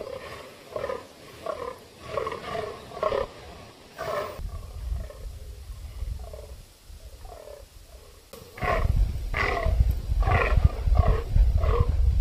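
Rutting fallow bucks croaking: repeated short, belching groans falling in pitch, several a second, in bouts. About two-thirds of the way through, a loud low rumble comes in under the calls.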